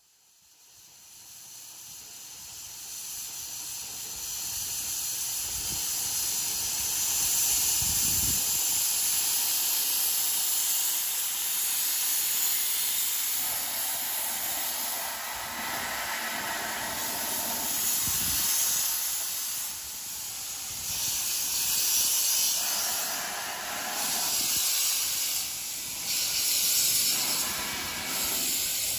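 Steam hissing from the Ravenglass & Eskdale steam locomotive Whillan Beck, jetting from its open cylinder drain cocks as it prepares to move off. The hiss builds over the first few seconds, then swells and eases in waves.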